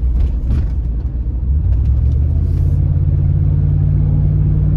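Range Rover P38 heard from inside the cabin while driving: steady low engine and road noise. It grows louder and more even about one and a half seconds in as the car pulls away from a roundabout onto a straight road.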